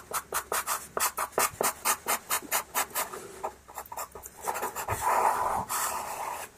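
Pastel pencil scratching across pastel paper in quick short strokes, about four or five a second, running into a longer, steadier rub over the last couple of seconds.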